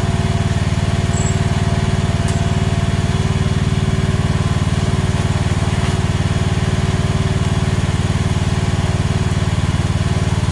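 AGT H13R mini excavator engine running at a steady speed.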